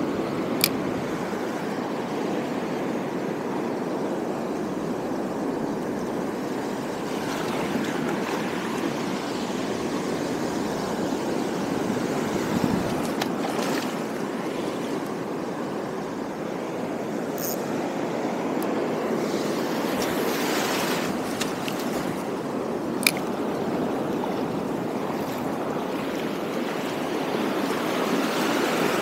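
Sea surf washing steadily through the shallows, with two sharp clicks, one just after the start and one about two-thirds of the way through.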